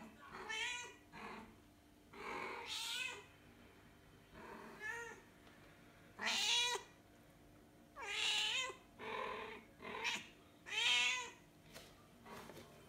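Grey tabby mother cat meowing over and over, about ten short calls, several rising then falling in pitch: a queen's call for her kitten.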